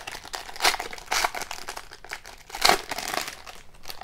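Foil trading-card pack wrapper crinkling as hands pull it open, in a run of uneven rustles with the loudest about two and a half seconds in.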